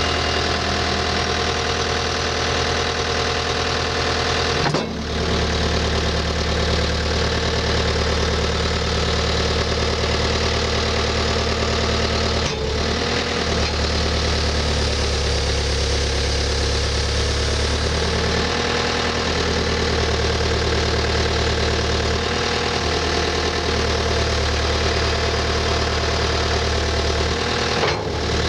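Skid steer engine running steadily just after start-up, with brief dips in its sound about five, twelve and twenty-eight seconds in.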